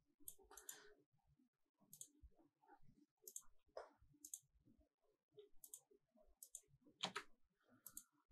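Faint, scattered computer mouse clicks, a dozen or so at uneven intervals, with one louder click about seven seconds in.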